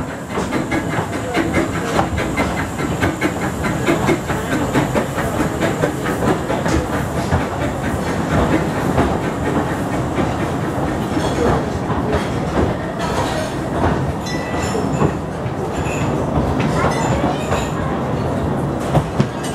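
Narrow-gauge steam train running slowly into a platform, its carriage wheels clicking and clattering over the rail joints as the coaches roll past. A few short high squeals come in the second half as it slows.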